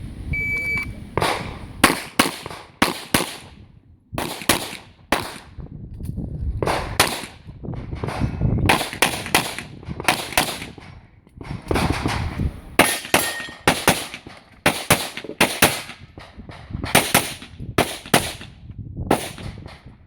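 A short electronic beep, then handgun shots fired in rapid strings, mostly in quick pairs, about thirty in all with short pauses between strings: a competitor shooting a practical pistol stage after the start signal.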